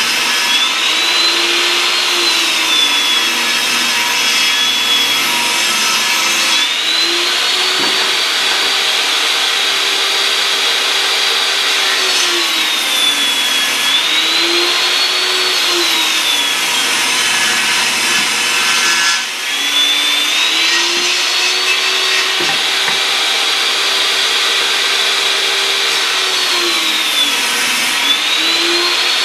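Table saw ripping wooden boards lengthwise into 2-inch strips. The motor runs loud and continuously, and its whine sags and recovers several times as the blade takes up and then comes free of the load.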